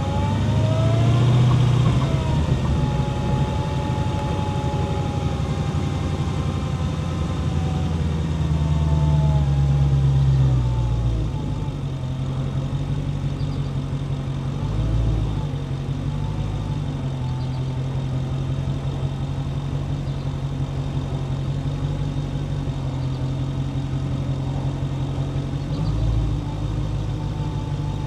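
Dodge Charger Hellcat's supercharged 6.2-litre V8 on the move, exhaust note with supercharger whine gliding up and down as the revs change. It is louder and pulling for the first ten seconds or so, then settles to a steadier, quieter note with two short blips of throttle later on.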